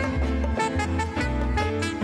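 A live band playing an instrumental passage: a saxophone carries the melody over plucked strings and a bass line.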